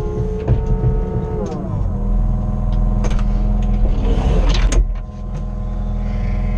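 Kobelco SK55SRX mini excavator's diesel engine running, heard from inside the cab. Its pitch drops a little under two seconds in. Around four to five seconds in there is a rush of hydraulic hiss with a few sharp clicks and a knock as the controls are worked.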